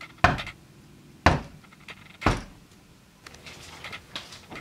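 Three loud knocks on a wooden door, about a second apart, followed by faint shuffling.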